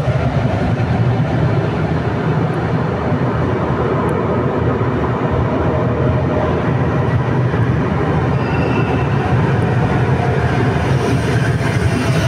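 Trenord TSR double-deck electric trains in an underground station: one pulls out and the next comes in, with a steady rumble throughout. High wheel or brake squeals start about two-thirds of the way in and again near the end as the arriving train draws alongside.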